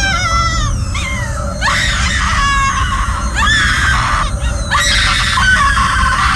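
A woman screaming again and again, each scream sliding down in pitch, over a steady low rumble.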